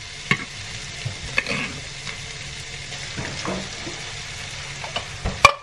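Ground meat sizzling in a frying pan as tomato sauce is poured in from a can, with a few sharp metal clicks and taps, the loudest a knock near the end.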